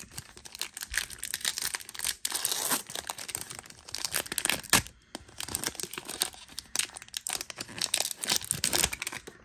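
Plastic wrapper of a trading-card pack crinkling and tearing as it is handled and torn open, with short pauses near 2 s and about halfway.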